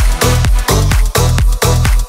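Electronic dance music with a steady, heavy bass beat.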